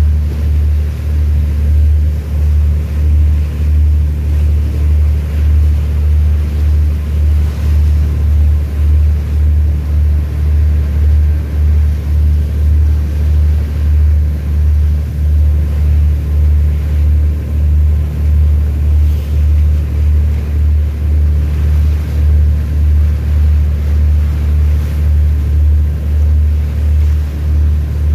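A ship's engine runs with a steady low rumble that pulses evenly, about three beats every two seconds.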